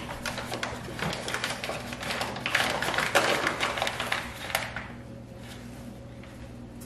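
Plastic packaging crinkling and crackling as it is handled and torn open, for about four and a half seconds, then dying down to a low steady hum.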